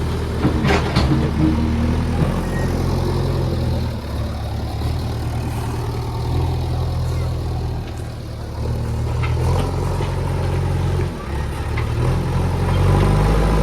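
Heavy diesel engine running under load, its speed stepping up and down several times, with a few sharp knocks in the first couple of seconds.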